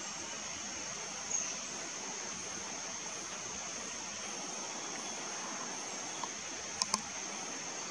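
Steady high-pitched insect drone over an even outdoor hiss, with a short high falling chirp about a second in and two sharp clicks close together near the end.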